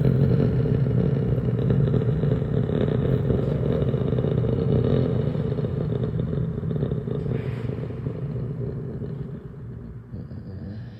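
ACA Penetrator 50 outdoor warning siren (50 hp rotor, 9/12-port chopper) winding down after its attack signal: a low, steady growl that slowly fades away over the last few seconds.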